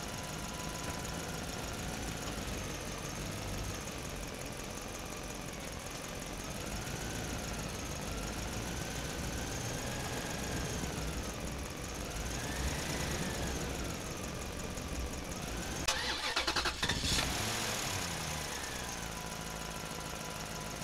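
Vehicle engine sound, most likely a dubbed sound effect, running steadily with a pitch that wavers slowly up and down. About three-quarters of the way through comes a short burst of rapid clatter, followed by a falling whine.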